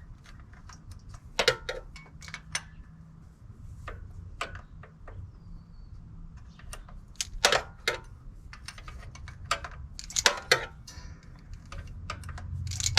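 Wrench clinking on a tight thermostat housing bolt as it is worked loose a little at a time, irregular sharp metallic clicks several seconds apart.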